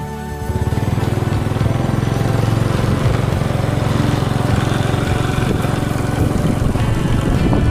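Music stops about half a second in, giving way to a vehicle's engine running steadily at travelling speed, with a fast even engine beat and road noise.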